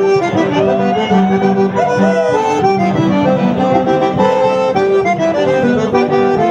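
Accordion music: a melody played over sustained chord and bass notes, in the style of traditional gaúcho music.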